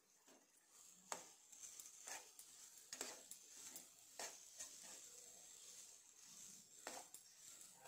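Steel spoon stirring and mashing boiled potato filling in a non-stick pan: soft scraping and squishing broken by sharp taps of the spoon against the pan, the loudest about a second in and again near three, four and seven seconds in.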